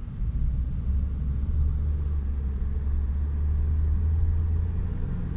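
Chevrolet Sonic being driven, a steady low rumble of engine and road heard from inside the car, growing a little stronger about a second in. The engine has an intermittent misfire on cylinder 3, which the mechanic puts down to a failing ignition coil pack.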